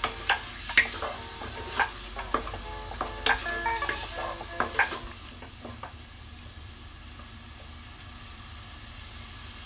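Wooden spatula stirring and knocking against a nonstick saucepan as tomato and onion, garlic and ginger paste fry in oil with a steady sizzle. The spatula knocks stop about five seconds in, leaving the sizzle on its own.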